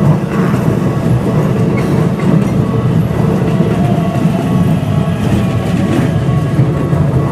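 Keikyu train passing close by at a level crossing: a steady, loud rumble of wheels and running gear on the track.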